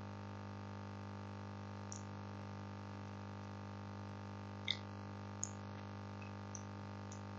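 Steady electrical hum on a headset microphone line, with a few faint sharp clicks, the loudest about four and a half seconds in.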